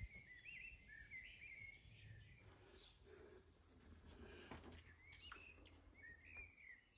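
Faint birdsong: quick chirping, twittering phrases, one run in the first second and a half and another near the end, over quiet background noise.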